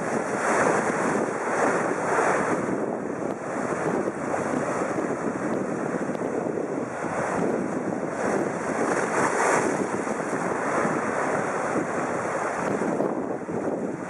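Sea surf breaking and washing over the rocks of a rocky shore: a continuous rushing noise that swells and eases as each wave comes in.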